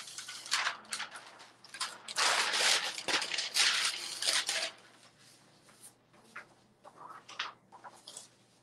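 Paper sheets and fabric rustling and crinkling as they are handled on the platen of an open heat press. The rustling is loudest in the first half, then thins to a few lighter rustles and taps.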